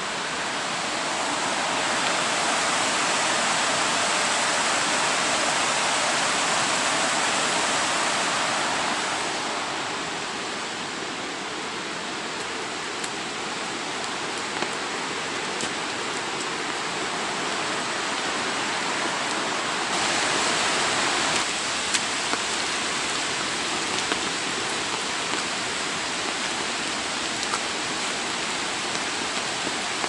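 Steady rush of a mountain stream mixed with falling rain, louder for the first several seconds, then steadier with scattered ticks of raindrops.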